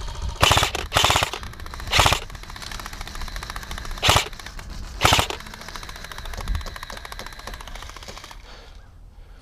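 Airsoft G&P Stoner 63 electric light machine gun firing five short full-auto bursts, the first three close together and two more a few seconds later, with fainter rapid fire rattling between them.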